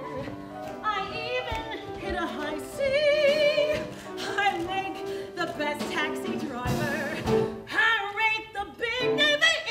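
A woman singing a Broadway show tune full-voiced, with wide vibrato on held notes, over instrumental accompaniment. Her loudest, highest held notes come near the end.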